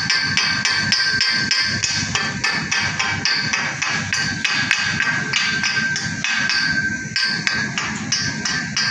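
Chipping hammer knocking slag off a fresh weld on a galvanized steel pipe joint: quick metallic taps that ring, about four a second.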